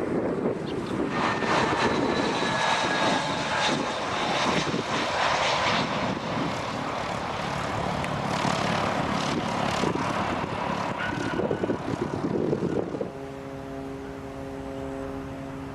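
Aircraft engine noise as a plane passes close by on the airfield, with whining tones that fall in pitch as it goes. About 13 seconds in the sound drops to a quieter, steady hum made of several even tones.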